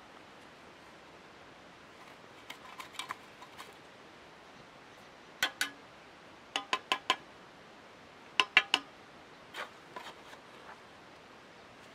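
Steel brick trowel tapping bricks down into fresh mortar: sharp ringing taps in short groups, two, then four, then three, with fainter taps and scrapes before and after.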